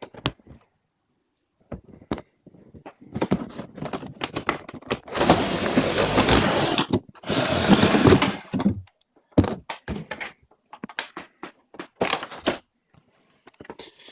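Toy box set's cardboard packaging being opened and handled: scattered knocks and clicks, with two longer stretches of rustling and scraping about five and seven and a half seconds in.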